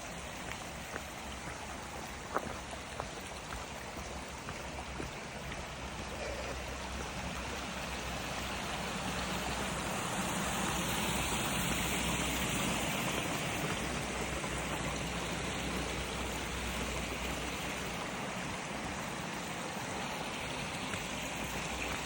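Mountain stream rushing over rocks, a steady wash of water that swells a little toward the middle, with a few light knocks in the first few seconds.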